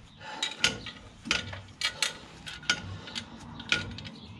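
Light metallic clicks and taps at irregular intervals from a car's clutch pressure plate and its bolts being handled, as the bolts are started and wound in by hand.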